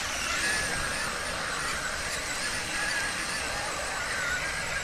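Brushless electric motor of a Traxxas Summit RC truck whining at high revs under throttle, its pitch wavering slightly, over a steady hiss.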